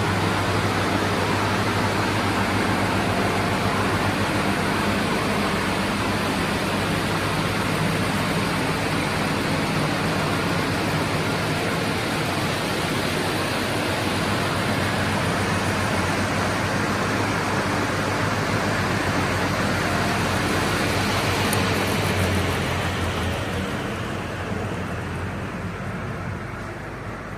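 SCM M2 crawler-feed multi-rip saw running under its roughly 30 kW main motor, giving a steady hum and a dense noise of blades and feed. About 22 seconds in the hiss thins out and the level drops somewhat.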